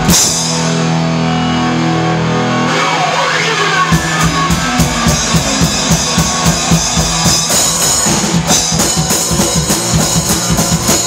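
Rock band playing live: a held chord rings out with the drums dropped out, a note glides downward, then drums and guitar come back in at a fast, steady beat about four seconds in.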